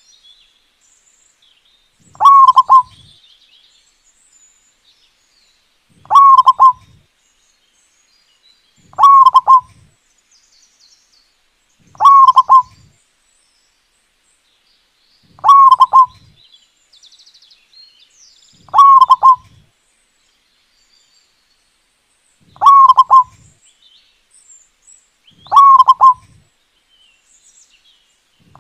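Zebra dove (local perkutut) singing its cooing song: a short, loud phrase repeated about every three to four seconds, eight times.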